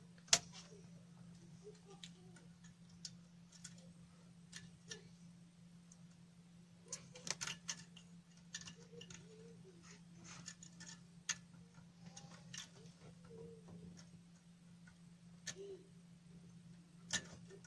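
Irregular small clicks and taps of test leads and clip leads being handled on a server power supply's output wiring, over a faint steady low hum.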